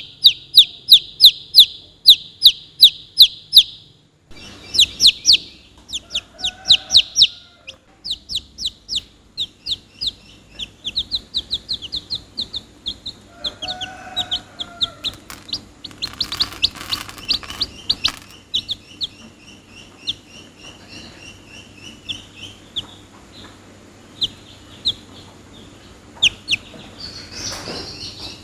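Domestic chicks peeping: loud, high, repeated peeps about three a second at first, then a busier stream of softer, quicker peeps from several chicks, with a couple of lower clucking calls mixed in.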